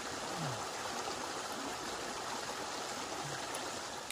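River water flowing steadily, an even rushing hiss.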